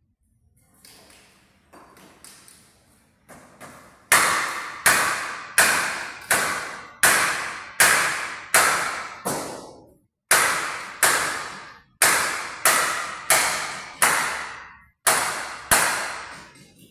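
A run of evenly spaced sharp knocks, each ringing away after it: faint and scattered at first, then loud and regular at about one and a half a second from about four seconds in, pausing briefly twice.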